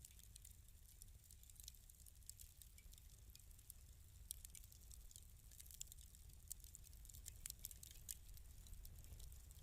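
Wood fire in a fireplace crackling quietly: irregular small pops and snaps over a low, steady rumble.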